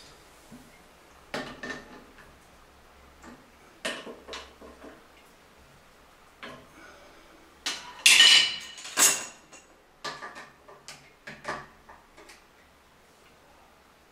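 Metal hand tools clinking and knocking as they are handled: a scattered run of separate clicks and clanks, the loudest two, with a brief metallic ring, about eight and nine seconds in.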